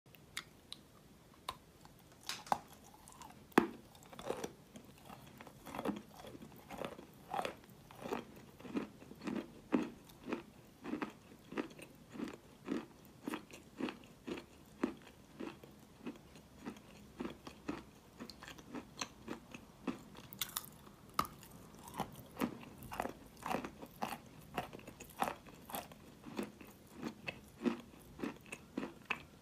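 Close-up biting and chewing of a block of wet chalk: a steady run of soft, moist crunches, about two a second. A few sharper bites stand out in the first few seconds.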